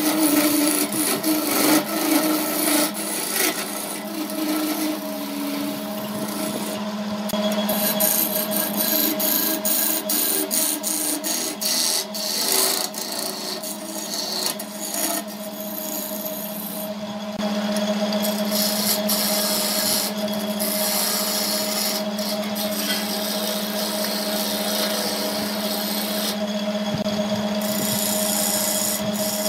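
A Burt wood lathe's motor runs with a steady hum while a hand-held turning chisel cuts into a spinning laminated scrap-wood vase blank, making a continuous rough scraping. A few times the cutting noise briefly thins as the tool eases off.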